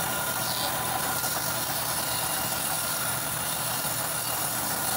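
Sawmill band saw running steadily as its blade cuts lengthwise through a mahogany log.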